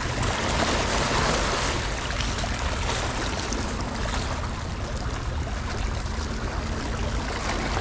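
Steady rushing noise of wind and sea waves on the shore, a little stronger in the first two seconds.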